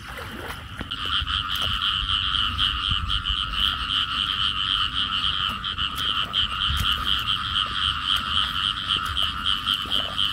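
Frogs chorusing in a rice paddy flooded by heavy rain: a loud, fast-pulsing run of high croaks that starts about a second in and keeps going without a break.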